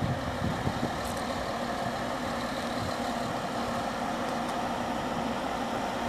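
Parked coach's diesel engine idling steadily.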